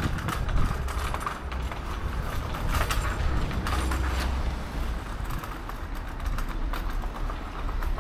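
Footsteps of a person walking on pavement, a string of short irregular steps over outdoor street ambience with a steady low rumble underneath.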